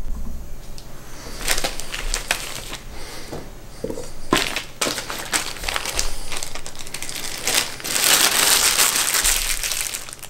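Thin plastic crinkling and rustling in rapid crackles: zip-top freezer bags and a disposable plastic glove being handled. It grows loudest and densest near the end.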